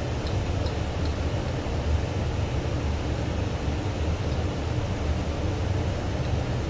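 Steady low mechanical rumble with an even hiss of air.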